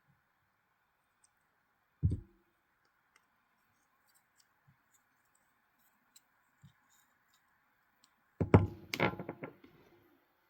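Small metal parts of a folding knife being handled during disassembly: a single knock about two seconds in, then a quick cluster of clicks and taps near the end.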